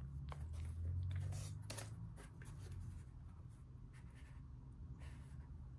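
Faint rustling, scraping and light taps of hands handling and turning a cardboard model, with a low rumble during the first two seconds.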